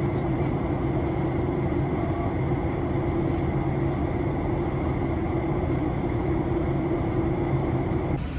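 Boat engine running steadily: a continuous drone at a fixed pitch with a steady hum beneath, which breaks off abruptly just before the end.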